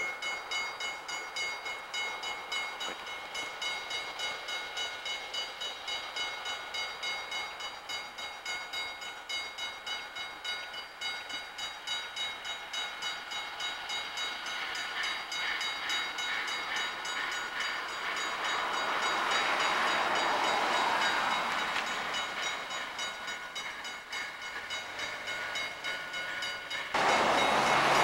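Narrow-gauge K-28 steam locomotives working, their exhaust chuffing evenly about two to three times a second. A rush of steam hiss swells up about two-thirds of the way in. A sudden, much louder blast starts about a second before the end.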